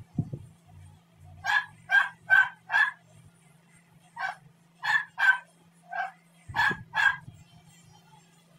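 A dog barking in two runs of short barks, four and then six, over a faint low steady hum, with a dull thump near the start and another about two thirds of the way through.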